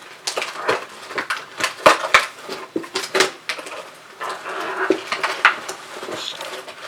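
Irregular clicks, taps and light clatter of small hard objects being handled, typical of dolls and their plastic packaging and accessories being unpacked.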